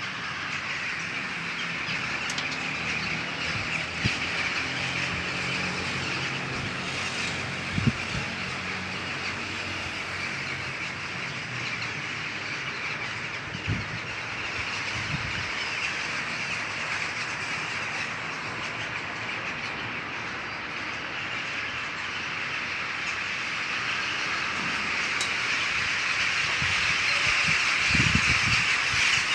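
Birds calling overhead as a dense, continuous chatter that grows louder near the end, over a low background hum, with a few short knocks.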